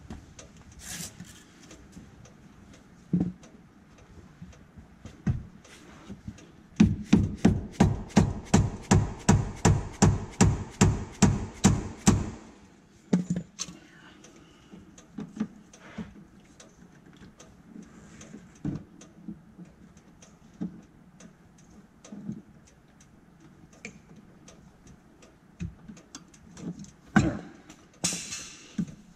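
A rubber mallet tapping a part into the golf cart's rear suspension: a quick even run of about twenty knocks, some four a second, for about five seconds. A few single knocks of tools and parts come before and after.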